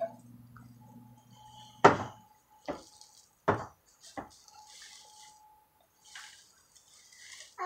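Four sharp knocks on the wooden cabinet as a toddler moves about inside it, the first and third the loudest, followed by soft rustling of plastic bags, with a faint steady hum underneath.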